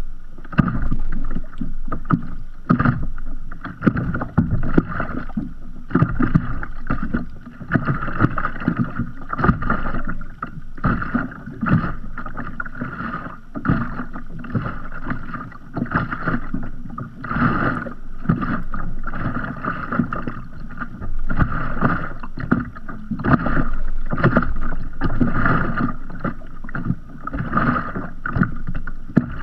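Sea water lapping against the hull of a drifting kayak: a constant, irregular patter of small splashes and slaps close to the microphone.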